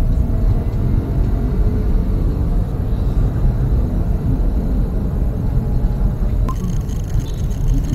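Steady low rumble of a car's engine and road noise heard inside the cabin. About six and a half seconds in, a faint high hiss joins it abruptly.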